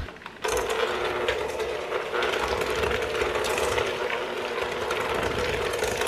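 Electric hand mixer switched on about half a second in and running steadily with a constant motor whine. Its beaters are mixing eggs into creamed butter and sugar in a stainless steel bowl.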